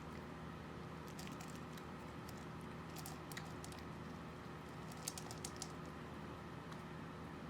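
Faint, light clicks and scratches in short clusters, about a second and a half apart, over a steady low room hum.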